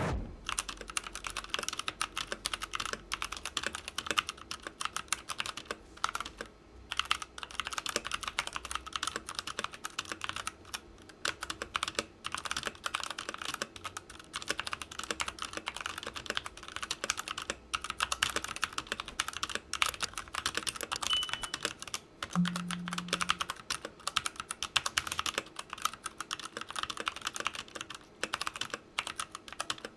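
Redragon K530 Draconic 60% mechanical keyboard with brown tactile switches being typed on continuously: a fast, dense clatter of key presses, with a brief pause about seven seconds in.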